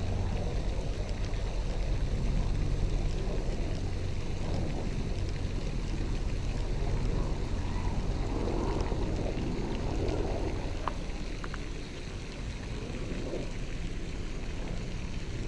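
Steady low outdoor rumble with a faint hiss above it, and two short faint clicks about eleven seconds in.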